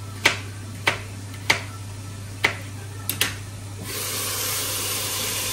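Kitchen knife chopping garlic on a cutting board, single sharp taps every half second to a second. About four seconds in, a steady sizzling hiss of frying in hot oil takes over, over a low steady hum.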